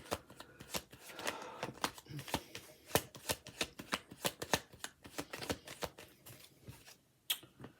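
A tarot deck being shuffled by hand: a run of quick, irregular card slaps and riffles that stops near the end.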